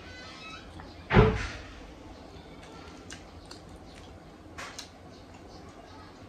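A single loud thump about a second in, then a few faint clicks.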